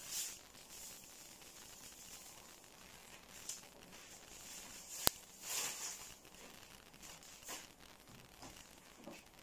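Faint, scattered rustling and handling noises of someone cooking at a pot, with one sharp click about five seconds in.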